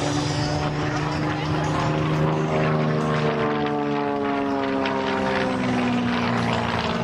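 Propeller-driven aerobatic plane's piston engine running at high power overhead, a steady drone whose pitch slides slowly down as the plane passes.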